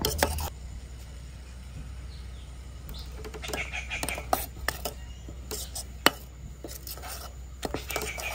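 Steel spoon clinking and scraping against a stainless-steel pot as boiling milk tea is stirred: irregular light clinks, one sharper about six seconds in, over a steady low hum.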